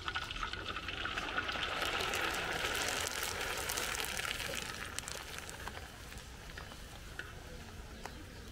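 Thin plastic bag crinkling and rustling as stacks of crisp fried papor are handled and packed into it, loudest over the first five seconds and then quieter.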